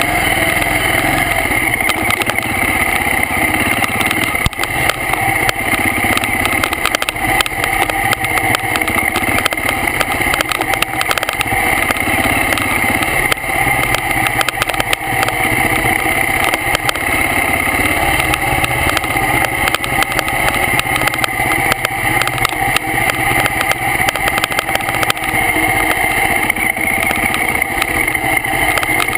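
BMW G650 Xchallenge's single-cylinder engine running steadily as the bike rides a rough dirt trail, heard from a camera mounted on the bike. Frequent small knocks and rattles run through it.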